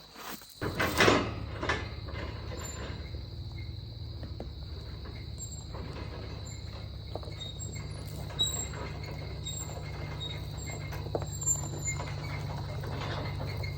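An engine starts about half a second in, catches with a brief loud burst, then idles steadily. Crickets trill steadily behind it.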